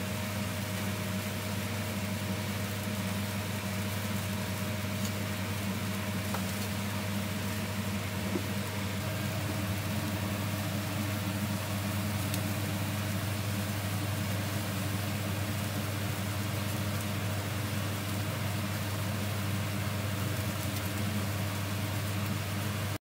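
Steady low hum with an even hiss over it, the constant running noise of a grill station with glowing infrared burners.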